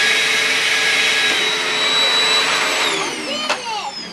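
Vacuum cleaner running with a steady high whine. It is switched off about three seconds in, and the whine falls as the motor winds down. A sharp click comes shortly after.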